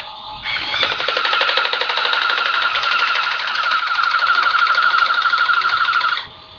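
Black & Decker toy chainsaw playing its electronic chainsaw sound from its small speaker: a loud, buzzy, fast-fluttering drone that starts about half a second in and cuts off suddenly near the end.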